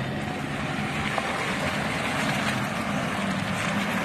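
Off-road vehicle engine running steadily under a broad rushing noise that grows louder about a second in.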